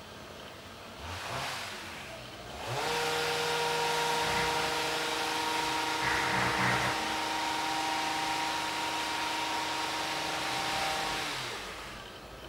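A motor spinning up with a brief rise in pitch, running at a steady pitch for about eight seconds, then winding down near the end.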